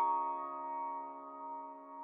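Background music: a sustained electric piano chord slowly dying away, with no new notes struck.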